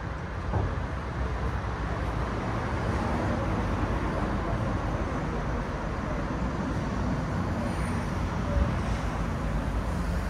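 Steady city traffic noise: road vehicles running past in a continuous outdoor wash of sound.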